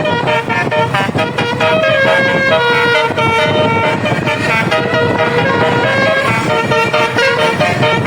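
A bus's multi-note basuri air horn, a 24-note telolet set, playing a quick melody of short horn notes one after another without a break.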